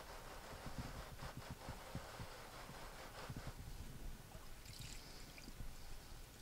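Circular saw blade turned against a scouring pad under cleaning solution: a faint scrubbing swish with small ticks for the first three seconds or so, then liquid splashing and dripping as the wet blade is lifted out, about five seconds in.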